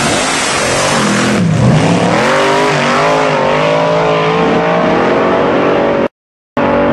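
Two dragsters at full throttle running down a drag strip. The engine pitch dips and climbs again about one and a half seconds in, and the sound cuts out for a moment near the end.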